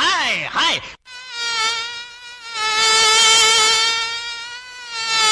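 Instrumental music: after a quick sweeping figure and an abrupt cut about a second in, one long, buzzy high note is held with only slight wavers in pitch, swelling and fading in loudness.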